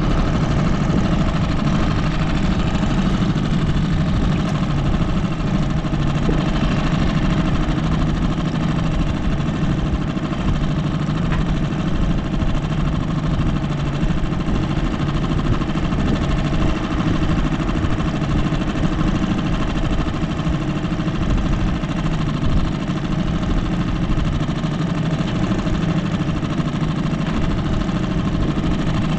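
An engine running steadily, with no change in speed.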